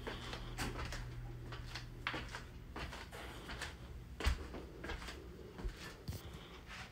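Irregular soft clicks and knocks, the loudest about four seconds in, over a low steady hum: room and handling noise as a phone is carried around a room.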